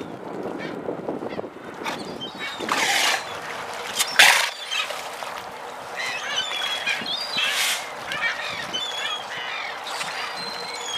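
Harbour water splashing around South American sea lions feeding from floating fish crates, with two loud splashes about three and four seconds in. Many short calls follow through the second half.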